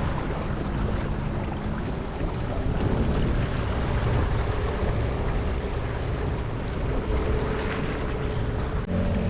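Mercury 8 hp two-stroke outboard motor running steadily under way, mixed with rushing water and wind buffeting the microphone. About nine seconds in the sound changes abruptly and the engine tone comes through more clearly.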